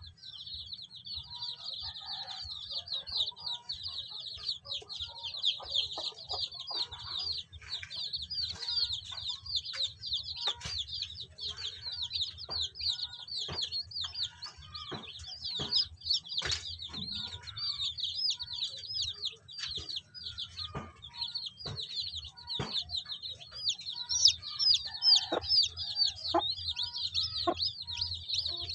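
Day-old native chicks peeping nonstop, a dense stream of short high chirps, while the brooding hen clucks low now and then. Scattered sharp taps come through the peeping.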